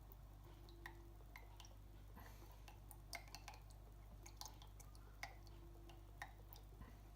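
Near silence with a low hum and faint, scattered light clicks and ticks: a spoon and soy sauce bottle being handled while soy sauce is measured out by the tablespoon.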